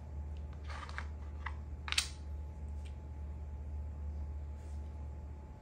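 Plastic makruk pieces clicking against the board and each other as one piece takes another and the taken piece is set aside: a few light clicks, the sharpest about two seconds in, over a steady low hum.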